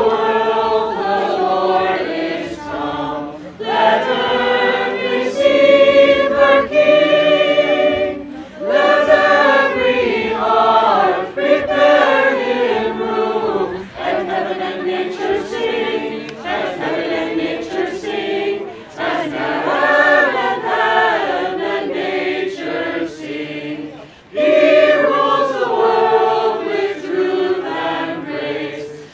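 A group of men and women carolers singing a Christmas carol together, in sung phrases with short breaks between them about every five seconds.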